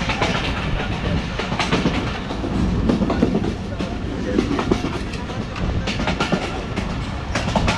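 Bangladesh Railway local train running, a steady rumble with frequent irregular clicks and clatter of wheels on the rails.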